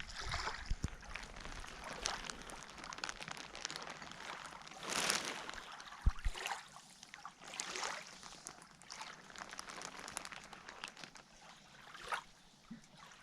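Lake water sloshing and trickling in irregular small splashes, the largest about five seconds in.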